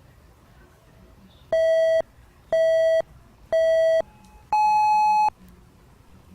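Electronic countdown beeps: three short beeps about a second apart, then a longer, higher beep, signalling the start of the hearing test.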